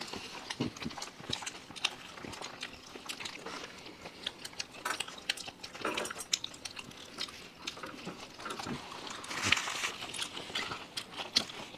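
Several people chewing and biting into egg rolls, with irregular smacking and clicking mouth sounds that bunch up briefly near the end.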